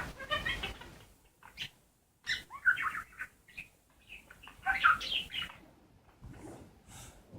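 Budgerigars chattering in quick chirpy bursts, three clusters of warbling with short pauses between, fading near the end. This is the chatter of a courting budgie pair.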